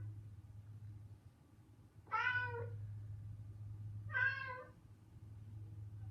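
Two recorded cat meows played from a smart speaker's cat-sounds skill, one about two seconds in and another about two seconds later, over a steady low hum.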